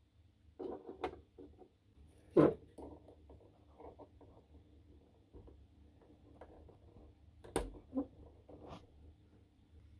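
Small plastic parts being handled and fitted: scattered clicks and knocks as a black plastic tap piece is pushed into the grey plastic housing of a water dispenser. The sharpest clicks come about two and a half seconds in and again about seven and a half seconds in, over a faint low hum.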